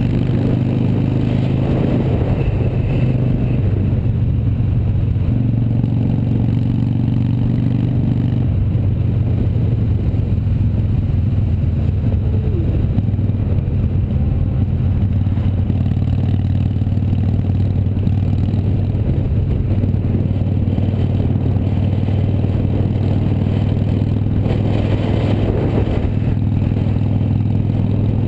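Harley-Davidson Sportster 883's air-cooled V-twin engine running at highway cruising speed, under the rush of wind. The engine note shifts pitch a few times in the first nine seconds or so, then holds steady.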